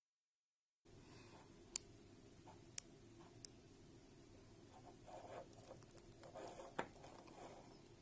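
After about a second of dead silence, a few sharp little clicks and soft scraping as a leather watch strap, spring bar and butterfly clasp are handled.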